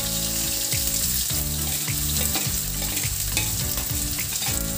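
Sliced onions hitting hot oil in a stainless steel kadai and frying, with a steady sizzle full of small crackles.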